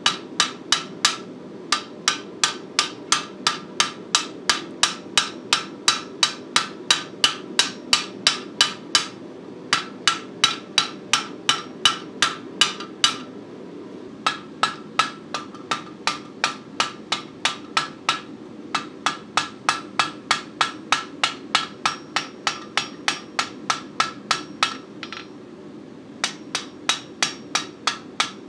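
Blacksmith's hand hammer striking the edge of a red-hot steel plate on the anvil, forging a bevel: a steady run of blows, about three a second, each with a short metallic ring, broken by a few brief pauses. A steady low hum runs underneath.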